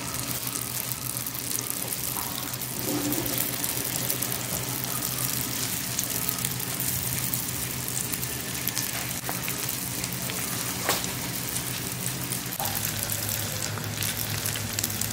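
Chicken spring rolls deep-frying in hot oil in a wok: a steady sizzle dotted with sharp crackles and pops, over a steady low hum.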